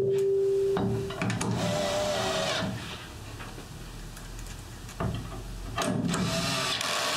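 Cordless drill running in three short bursts with a steady whine, driving screws into the elm tabletop.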